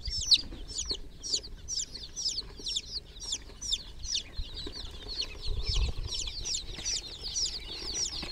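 A group of baby chicks peeping without pause: many short, high-pitched, falling peeps overlapping, several each second.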